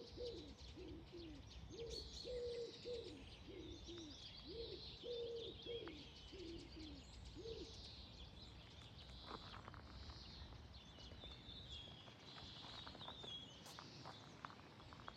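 A pigeon or dove cooing, a run of low repeated coos that stops about halfway through. Small songbirds chirp and twitter high and thin throughout.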